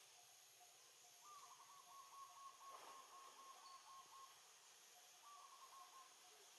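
A bird calling faintly in a fast run of short repeated notes, about five a second and dropping a little in pitch, then a shorter run of the same notes near the end, over a steady faint high hiss.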